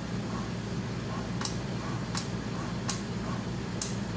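NIBP module of a Philips Efficia CM120 patient monitor inflating, with a steady low hum and four sharp clicks about three quarters of a second apart. The clicking is its solenoid valve working, the sign that the repaired module now functions.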